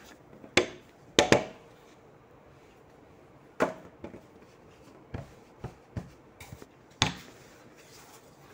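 A rolling pin with a rubber sleeve and wooden handles working pizza dough on a glass tabletop, giving irregular sharp knocks and taps as it is pushed, lifted and set down; the loudest pair come about a second in.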